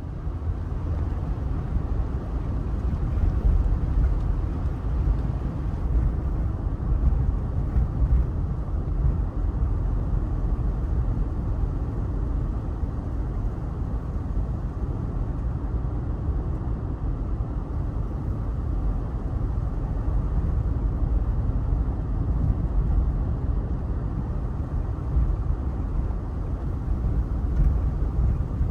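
Car driving at a steady pace: a continuous low rumble of road and engine noise, with no breaks or distinct events.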